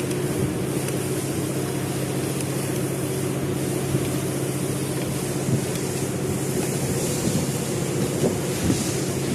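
A machine running with a steady, even hum, with a few light clinks and knocks near the end.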